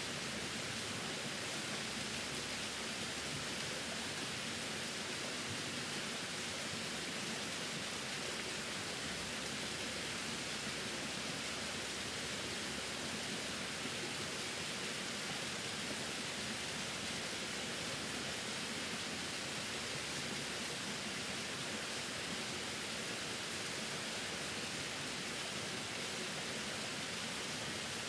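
A small waterfall splashing steadily down a rock face onto stones: an even, unbroken hiss of falling water, brightest in its upper range.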